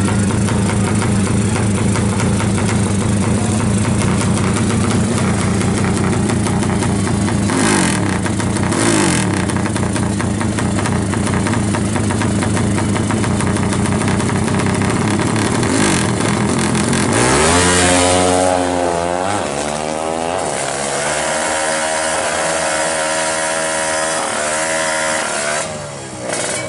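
Drag-racing motorcycle engine idling at the start line, blipped briefly a couple of times about 8 seconds in. About 17 seconds in it launches: the revs rise sharply and climb again through the gears as the bike pulls away down the strip.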